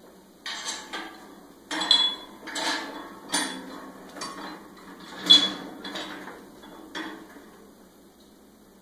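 Steel hitch parts and bolt hardware of a lawn sweeper clinking and clanking as they are handled and fitted together by hand. There are several separate sharp metallic knocks with a slight ring, the loudest about five seconds in, and the clatter dies away near the end.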